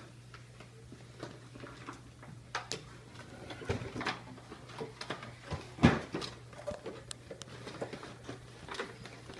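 Cardboard box and plastic packaging being handled: scattered taps, knocks and rustles, the loudest knock about six seconds in, over a steady low hum.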